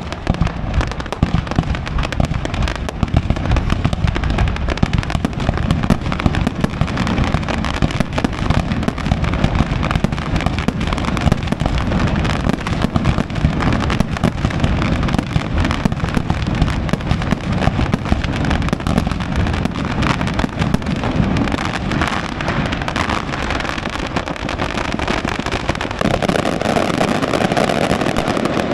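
Aerial fireworks display: a dense, continuous barrage of bangs and crackling reports with no pause. A steadier rushing noise joins near the end.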